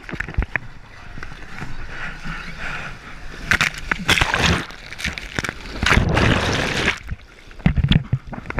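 Shorebreak wave breaking and whitewater rushing and sloshing around a waterproof action camera held at water level on a bodyboard ride through a barrel. There are two loud surges of rushing water, about halfway through and again about two seconds later, then a few low thumps of water on the housing.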